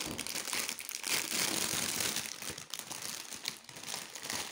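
Plastic packaging wrap crinkling and rustling as it is pulled off and crumpled by hand, a continuous run of small crackles.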